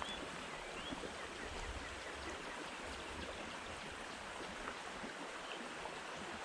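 Small creek's water flowing steadily.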